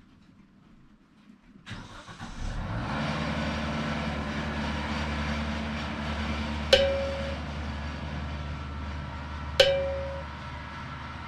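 An engine starting about two seconds in and then running steadily, with two sharp metallic clanks about three seconds apart that ring briefly.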